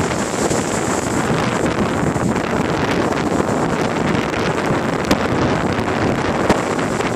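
Sea waves breaking and washing up a sloping concrete sea wall, under heavy wind buffeting on the microphone.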